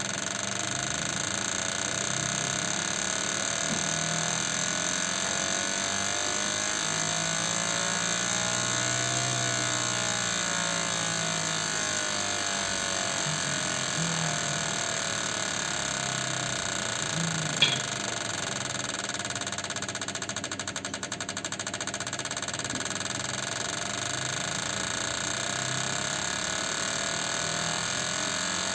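Fuel injector test bench running Toyota Prius petrol injectors just cleaned ultrasonically: a steady, rapid mechanical buzz of the injectors pulsing under pressure, with one sharp click a little past the middle.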